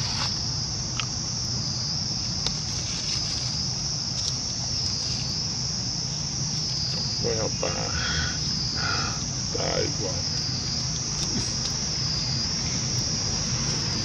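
A steady, high-pitched chorus of insects that wavers slightly in pitch, with a few brief voice-like sounds in the middle.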